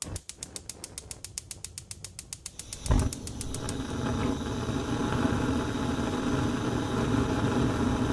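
Gas stove burner's igniter clicking rapidly, about seven clicks a second, until the gas catches with a loud whoosh about three seconds in; the lit burner then roars steadily.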